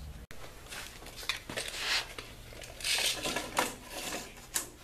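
Wooden handle blanks and small hand tools being handled on a metal table-saw top while measuring and marking: scattered clicks, knocks and scrapes.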